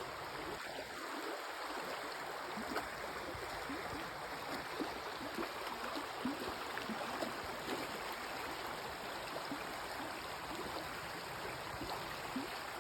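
Small stream flowing steadily over stones, with many short bubbling plinks and gurgles scattered through the rush of water.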